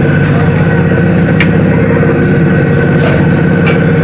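Air compressor of a Romanian class 40 electric locomotive running steadily: a loud, rapid, even pulsing with a steady whine over it. A few sharp metallic clicks about a second and a half and three seconds in.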